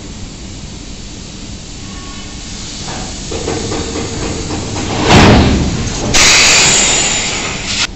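Compressed air hissing from the air hose that feeds a BOBR hopper wagon's pneumatic door cylinder: a loud rush of air about five seconds in, then a steady high hiss for under two seconds that cuts off suddenly.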